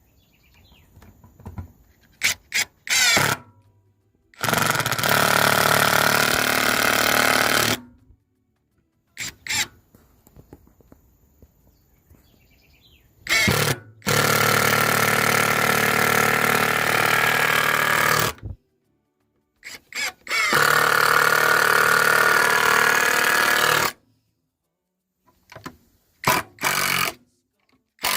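A Prostormer handheld power tool running on peroba wood in three bursts of a few seconds each, with short sharp knocks and clicks in between.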